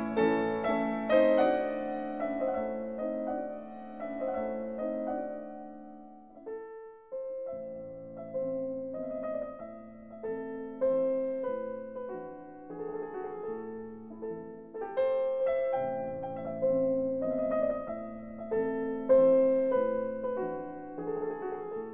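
Background piano music, a melody of separate notes over lower notes, with a short pause about seven seconds in.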